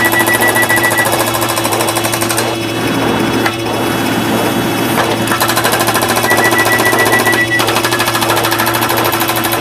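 A dense pile-up of sound effects fired in very fast succession and overlapping, blurring into a loud, rapid machine-gun-like rattle over a steady low tone. A high beeping alarm tone cuts through twice, for about the first second and again for about a second past the middle.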